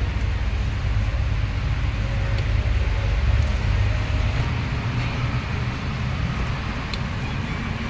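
A vehicle engine running steadily, with a continuous low rumble.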